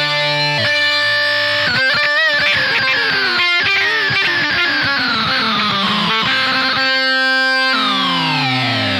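Electric guitar played through an EarthQuaker Devices Data Corrupter, the pedal's buzzy square-wave synth voices tracking the notes. The pitch wavers about two seconds in and then slides down in long sweeps, with one held note near the end.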